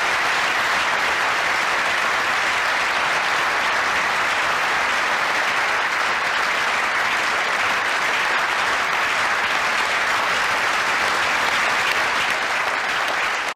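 Studio audience applauding steadily, many people clapping at once.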